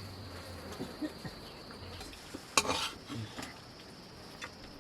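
Small clinks and scrapes of a metal plate and utensils during a meal of roti, with one louder clatter about two and a half seconds in, over a faint steady high tone.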